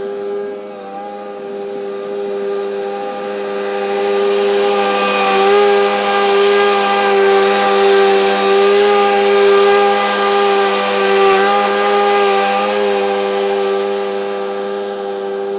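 A small engine running steadily at high speed, a constant whine whose pitch wavers slightly in the middle and gets a little louder there.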